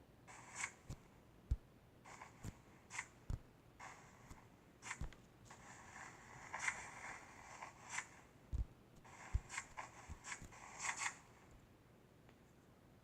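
Slime being squished and poked by hand: a run of short crackling, squelching bursts with a few soft knocks, the longest stretch of crackling around the middle.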